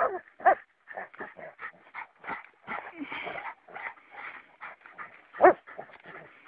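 Hunting dog whimpering and giving short yelps, among many quieter short sounds. Two sharper yelps stand out, one about half a second in and one near the end.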